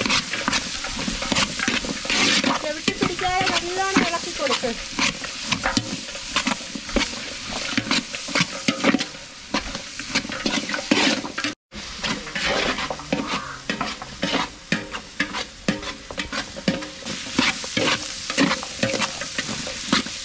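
Finely sliced shallots, garlic and onions sizzling as they fry in coconut oil in a large metal pot, stirred with a spatula that scrapes again and again against the pot. The sound cuts out for a moment just over halfway through.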